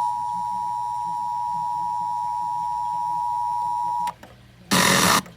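Emergency Alert System two-tone attention signal: two steady tones near 853 and 960 Hz sounding together, cutting off about four seconds in. A short burst of noise follows about half a second later.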